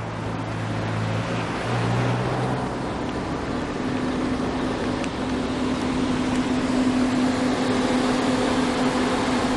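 Road traffic: cars driving past on a multi-lane road with steady tyre and engine noise, and the even hum of a car engine as a car pulls up close.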